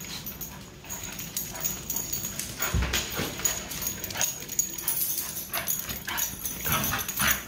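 A dog running zoomies on a hard floor: scrabbling paws and short yips and whimpers, with two heavy thumps, one about three seconds in and one near the end.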